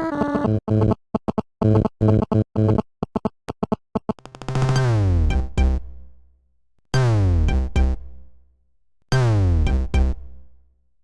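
Android phone ringtones playing. A choppy synthesizer melody with a drum-machine beat runs for about four seconds. Then a synth tone falls in pitch three times, about two and a half seconds apart, each one fading away.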